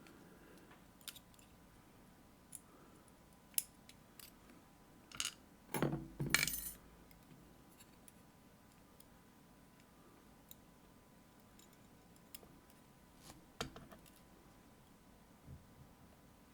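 Small metal lock parts, pins and springs from a disassembled Assa Guideline lock, clicking and clinking as they are handled and set down: a scattering of light taps, with a louder clatter of several clinks about six seconds in.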